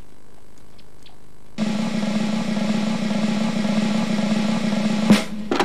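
Snare drum roll in the soundtrack, starting abruptly about a second and a half in, held for about three and a half seconds and ending with a sharp crash.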